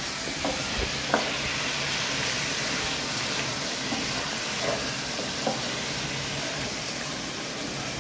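Chicken pieces and spices frying in oil in a pot, a steady sizzle, with a wooden spatula stirring and knocking lightly against the pan now and then.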